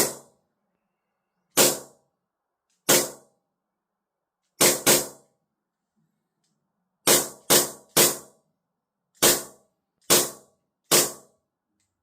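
WE Colt Series 70 gas blowback airsoft pistol firing about eleven shots at uneven intervals, some in quick pairs, each a sharp crack of gas and the slide cycling.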